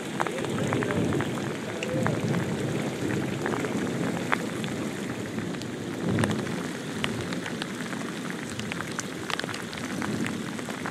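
Heavy rain pouring down onto a lake's surface in a storm, with many sharp ticks of drops striking close to the microphone. Gusts of strong wind rumble over it, swelling about six seconds in and again near the end.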